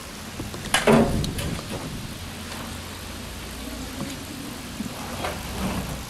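A vehicle engine idling, a steady low rumble, with a short loud sound about a second in.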